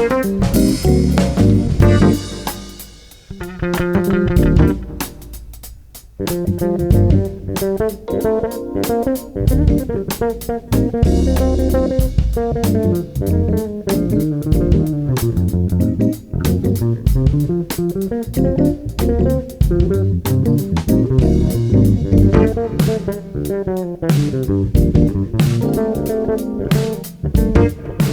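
Live jazz-fusion band playing, with bass and guitar to the fore over drums. About three seconds in the band drops back to a quieter, thinner passage, then comes back in at full strength about six seconds in.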